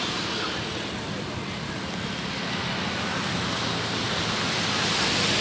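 Steady road traffic noise from passing cars, with a low engine hum. It grows a little louder toward the end.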